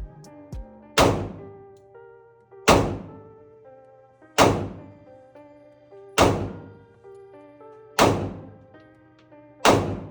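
Background music with a melody and a heavy, sharp hit landing very evenly about every 1.7 seconds, six times.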